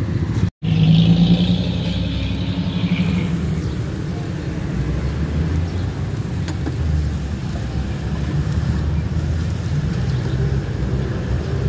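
Motor vehicle engines running with road traffic passing, a steady low hum throughout. The sound cuts out for a split second about half a second in.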